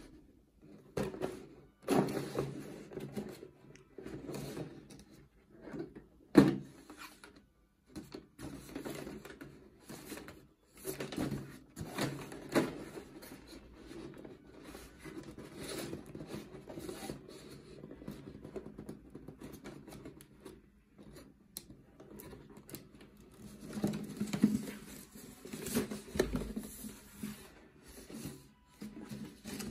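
Rustling and light knocking of a folded paper lamp shade being handled, in irregular bursts, with one sharp knock about six seconds in.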